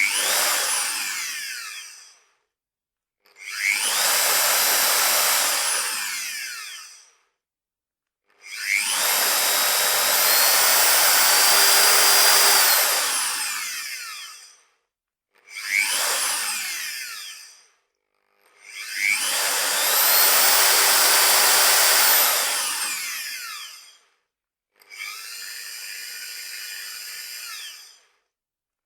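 Old electric drill run in six bursts of about two to six seconds, with gaps between them. Each burst spins up with a rising whine and winds down with a falling one. The last run, near the end, is noticeably quieter than the others.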